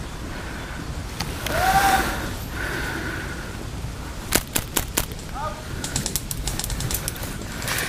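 Airsoft rifle shots: a few single sharp snaps about four seconds in, then a quicker string of snaps, over steady wind and brush noise. A brief louder sound comes near two seconds in.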